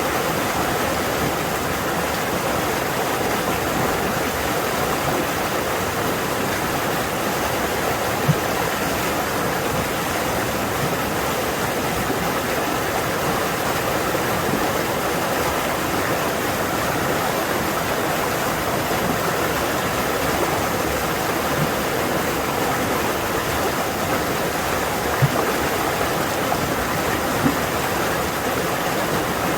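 A fast forest stream rushing loudly over rocks, a steady, even water noise with a few brief sharper splashes.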